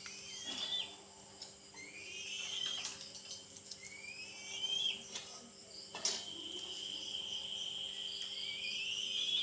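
Young eagle's high whistled begging calls while being fed: rising squealing whistles, one about every two seconds, the last one held for about three seconds and rising at its end. A few sharp knocks break in between.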